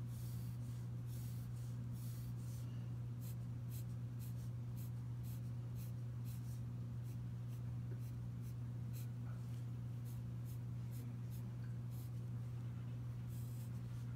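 Wooden pencil scratching on drawing paper in short, quick strokes, roughly one or two a second, as lines are sketched. A steady low hum runs underneath.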